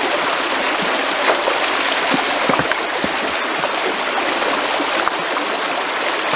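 River water flowing steadily in a continuous rushing wash, with a few short faint knocks a couple of seconds in.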